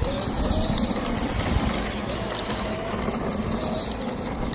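Razor Power Rider 360 electric ride-on trike running, its motor giving a faint wavering whine over the rumble of its wheels rolling on asphalt.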